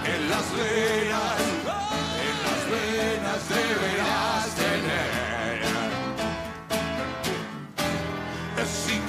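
A song performed live: men singing into microphones over a strummed acoustic guitar.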